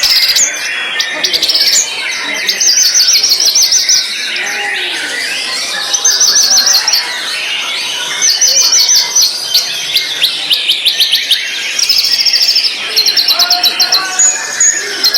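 White-rumped shama (murai batu) singing loudly: a varied song of high warbled phrases broken again and again by quick bursts of rapid repeated notes, each burst lasting about a second.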